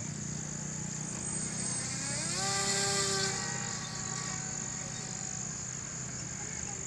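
Radio-controlled model plane's motor and propeller whirring overhead, rising in pitch about two seconds in, loudest around three seconds, then fading as it flies off.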